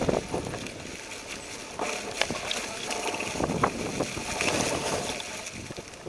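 Mountain bike rolling down a trail covered in dry leaves: a steady rustle of tyres through the leaf litter, with a few sharp clicks, and wind on the microphone.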